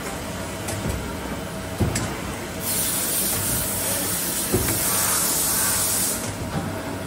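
Victor Vturn II CNC lathe's tool turret indexing, with a few low clunks. About three seconds in, a loud hiss starts and runs for about three and a half seconds before stopping.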